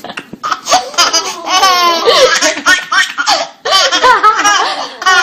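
High-pitched laughter, a fit of quick breathy pulses with a short pause about three and a half seconds in.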